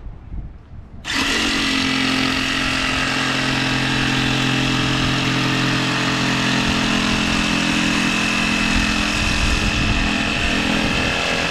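Jigsaw cutting a thin panel for a closet door, starting about a second in and running steadily with a high whine.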